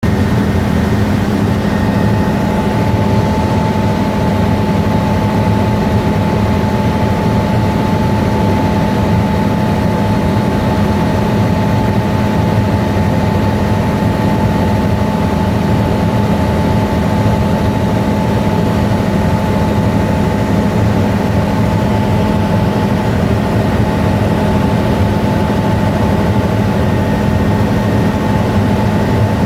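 Helicopter in flight: a loud, steady drone of engine and rotors with several held humming tones, unchanging throughout.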